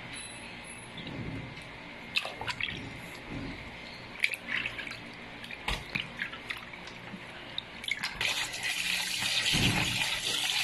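Hands working chicken gizzards in a basin of salted water, with small splashes and wet clicks. About eight seconds in, a tap starts running steadily onto the gizzards in a plastic colander as they are rinsed.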